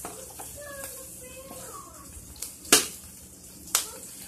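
Faint sizzling of food frying in pans on the stove, with two sharp clicks about a second apart near the end.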